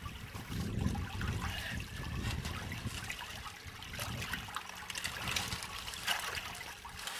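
Shallow creek water trickling, with splashes and scattered clicks as hands work in the water.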